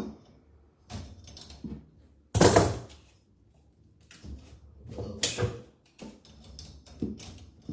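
Irregular knocks, clunks and clatter of hands and tools working in a bathroom sink cabinet while plumbing is being disconnected. The loudest knocks come about two and a half seconds in and again about five seconds in.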